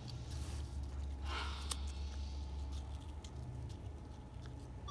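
Red panda biting and chewing a slice of Gala apple: wet, squishy munching with a few sharp crunching clicks, over a steady low rumble.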